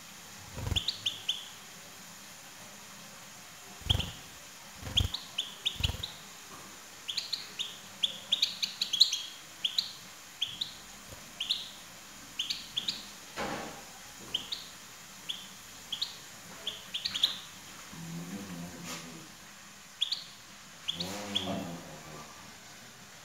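European goldfinch calls: short high chirps in quick clusters of two to five, repeated throughout. A few soft low thumps in the first six seconds, and a brief fluttering of wings about 21 seconds in as a goldfinch lands on the cage perch.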